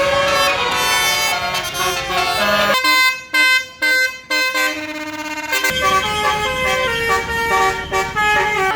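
Bus Basuri 'telolet' multi-tone air horn playing a melody of held notes that step from pitch to pitch, over a low engine rumble. The rumble drops away for a few seconds in the middle while the horn notes stutter.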